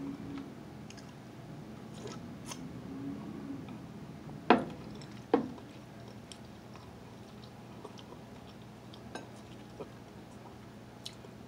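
A ceramic coffee mug set down on a table, two sharp knocks about a second apart midway, among faint clicks and soft eating sounds.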